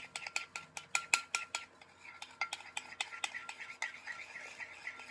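A spoon stirring white glue and a little water together in a bowl: quick, uneven clinks and scrapes of the spoon against the bowl, several a second.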